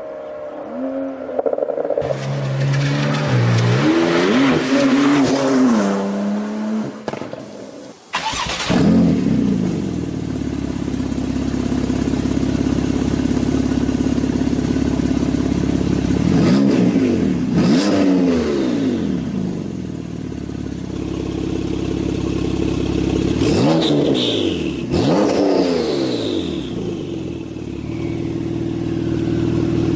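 Porsche 911 flat-six engine with a sports exhaust, revved with the throttle. An engine run rising and falling in pitch cuts off about eight seconds in. Then the engine idles steadily, with two pairs of quick, sharp revs that fall straight back to idle: two about halfway through and two more about three quarters through.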